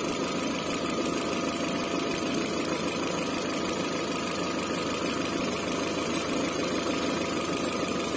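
Peugeot 407 engine idling steadily, warm, while being checked for an intake air leak; the mechanic traces the false air to a non-original inlet seal.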